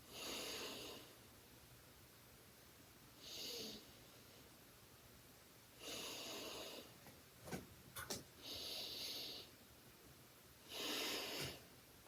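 A person's slow, deep breaths in and out, paced as a breathing exercise: five audible breaths of about a second each, a couple of seconds apart. Two short clicks come a little past the middle.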